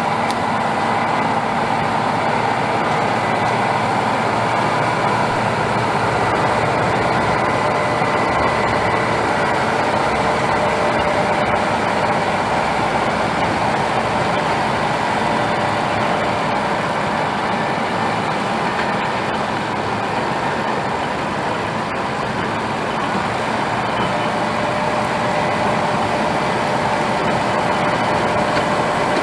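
Tractor engine running steadily, with steady whining tones over the engine noise.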